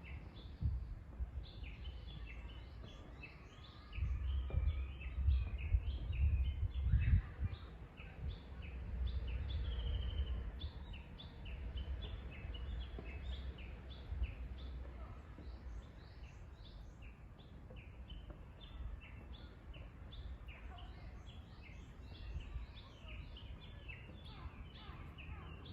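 Wild songbirds chirping and singing continuously, many short high notes overlapping, with one brief held whistle about ten seconds in. A low rumble rises for a few seconds early on and is the loudest part.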